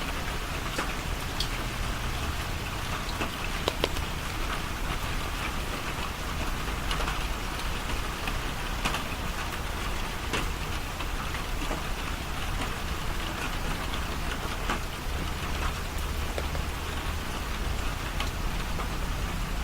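Steady rain falling, an even hiss with scattered ticks of individual drops hitting a surface.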